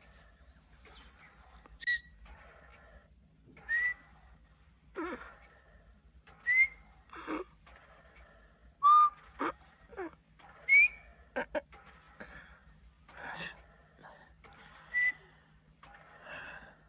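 A scattered series of short, rising whistle-like chirps, mixed with sharp clicks and a few brief noisy sounds that slide down in pitch, over a faint low hum.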